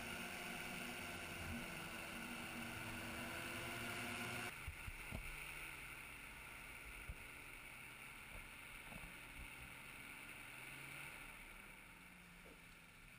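Powered parachute trike engine running steadily, then throttled back suddenly to a low idle about four and a half seconds in as the trike comes in to land. The engine sound fades toward the end, with a few faint knocks.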